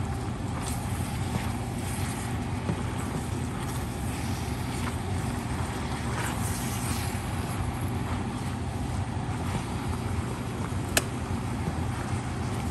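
Stir-fry sizzling steadily in a wok over a low steady hum, with a metal spatula scraping and clinking against the pan; one sharp clink about eleven seconds in.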